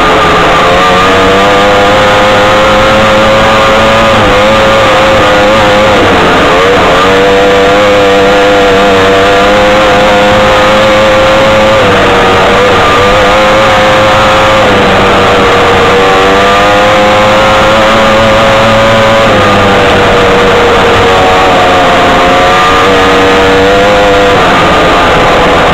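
Odyssey off-road buggy's engine running hard at high, fairly steady revs while driving. The revs dip briefly and climb back a few times, around 6, 12 and 19 seconds in.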